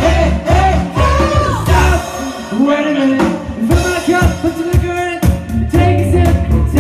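Pop-funk music playing loudly: a singing voice over bass and drums.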